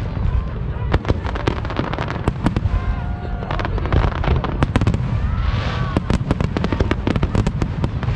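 Aerial fireworks display: a rapid, dense run of bangs and crackling from bursting shells over a continuous low rumble.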